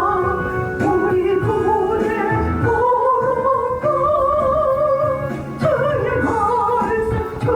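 A woman singing a Korean Christian praise song with a wavering vibrato on long held notes, over instrumental backing music.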